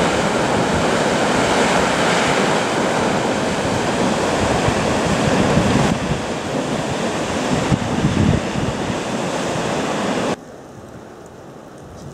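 The Middle Falls of the Genesee River rush steadily through the one open channel left in its ice-covered face. The sound is a loud, even wash of falling water. It cuts off abruptly near the end, leaving a much quieter steady hiss.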